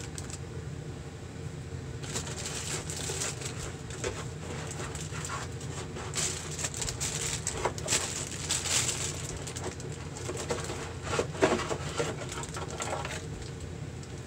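Plastic packaging bag crinkling and rustling in irregular spurts as a bagged all-in-one liquid cooler's radiator is handled and pulled out of its cardboard box, over a steady low hum.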